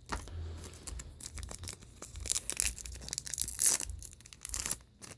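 Trading card booster pack wrappers being torn open and crinkled by hand, with irregular papery crackles and rips; the loudest rips come about halfway through and again a little later.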